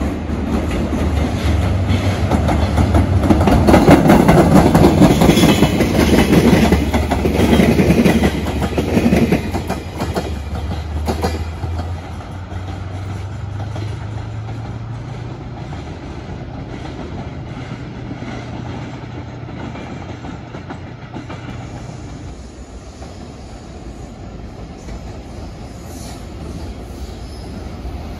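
JR Freight DF200 diesel-electric locomotive passing close, its diesel engine drone under the clatter of wheels over the rails. It is loudest in the first ten seconds, then settles to a lower, steadier drone that fades further later on.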